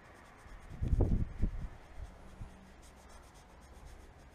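Cloth rubbed by hand over a boat's fibreglass gel coat, working oxidation remover paste into the surface. About a second in come a few loud, low thumps.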